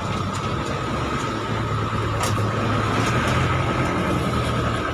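A motor vehicle engine running steadily: a low, even hum with a thin steady whine above it and a few light clicks.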